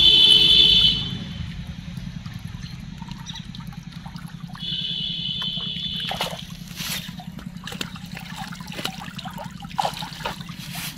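Cast net being hauled by hand out of a pond: water trickling and splashing off the mesh, with more and sharper splashes in the second half. A steady low hum runs underneath, and a high steady tone sounds twice, at the start and around the middle.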